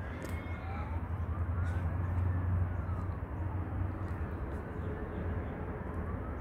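Emergency-vehicle siren wailing in the distance, its pitch sweeping slowly up and down over about two seconds each way, over a steady low rumble.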